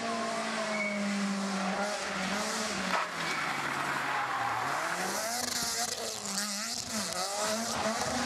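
Rally car engines revving hard through corners, pitch climbing and dropping repeatedly with gear changes and lifts off the throttle, with some tyre squeal. There is a sharp crack about three seconds in.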